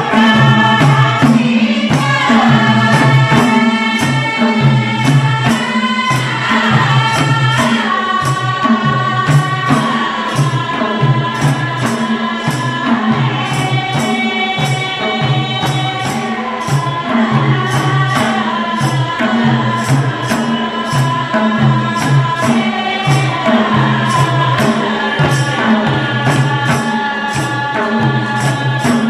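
Group singing a Nepali folk song over madal hand drums beating a steady rhythm, the voices holding long notes.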